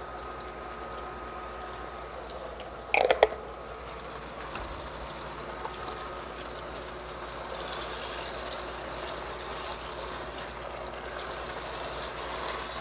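Sauce-coated tofu and vegetables simmering and sizzling quietly in a wok on an induction cooker, with a brief burst of sharp knocks about three seconds in. Near the end a spatula stirs through the food.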